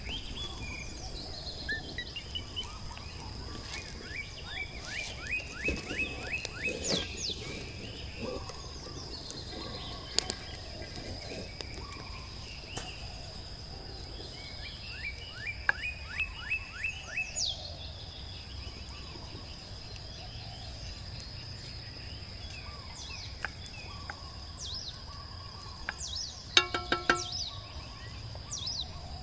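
Outdoor ambience with birds singing: two trills of quick, downward-sweeping notes, a short run of pitched notes near the end, and a steady high-pitched whine underneath. A few sharp clicks are scattered through it.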